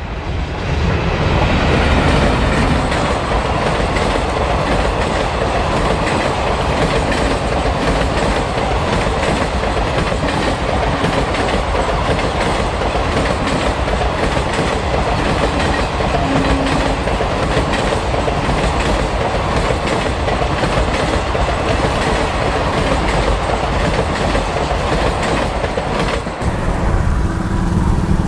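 Parcel express train of blue ICF high-capacity parcel vans behind an electric locomotive running past at speed, a steady rumble with the wheels clattering rhythmically over the rails. The sound swells within the first two seconds as the train comes close, and near the end it cuts off suddenly to a quieter, more distant train.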